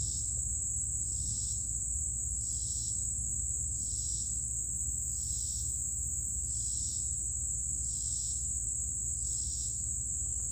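Insects calling: a steady high-pitched trill with a second insect chirping evenly about every second and a half, over a low steady rumble.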